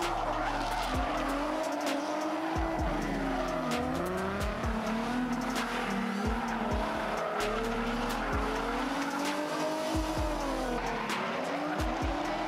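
Drift-car engines revving hard, rising and falling in pitch again and again as the cars slide through the turns, with tyres squealing under the slide. The revs drop sharply and climb back twice.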